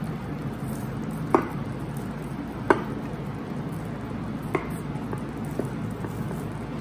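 Kitchen knife cutting through a cheese-topped potato and vegetable bake. Its blade clicks sharply against the glass baking dish three times, then twice more faintly, over a steady low hum.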